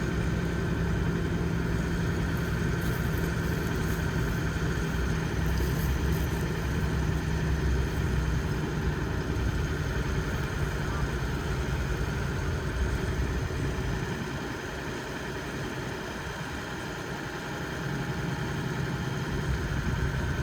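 Tractor engine running steadily while pulling a plough. It drops back a little for a few seconds past the middle, then picks up again.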